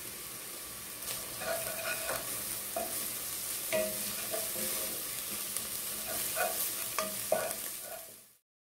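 Chopped shallots and spice paste frying in oil in a stone-coated pot with a steady sizzle. From about a second in, a wooden spatula stirs them, scraping and tapping against the pot. The sound cuts off suddenly near the end.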